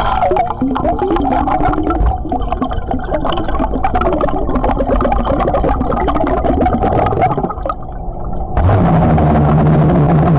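Underwater gurgling and bubbling from a man who has chugged a bottle of Pepsi and is belching: wavering, bubbly tones with many small pops. About eight and a half seconds in, a loud, long, low-pitched belch starts and holds steady.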